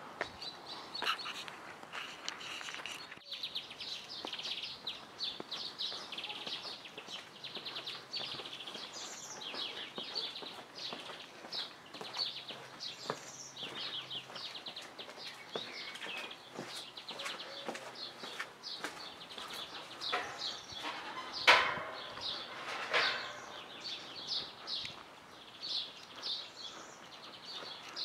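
Many small birds chirping and twittering without a break, over footsteps on stone paving. A single louder sharp knock comes about two-thirds of the way through.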